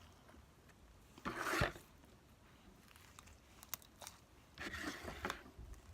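Homemade slime being squished and stretched by hand, giving soft wet crackling squelches about a second and a half in and again near the end.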